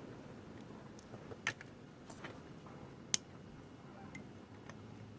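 A few faint, sharp clicks and taps from handling tools and parts on the TV's circuit board, over a low steady hiss; the sharpest click comes about three seconds in.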